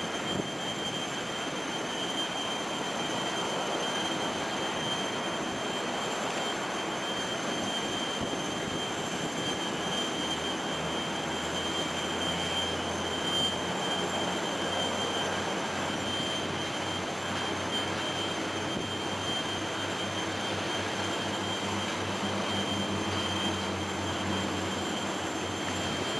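Airbus A380's jet engines whining at the gate during engine start, a steady high-pitched tone over a broad rush. A low hum joins about ten seconds in.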